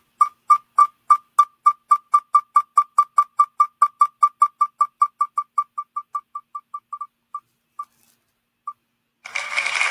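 Online spinning-wheel picker ticking as the wheel spins: short, clear ticks at about four a second that space out and fade from about six seconds in as the wheel slows to a stop, the last two well apart. About a second before the end, a loud, noisy winner sound effect starts.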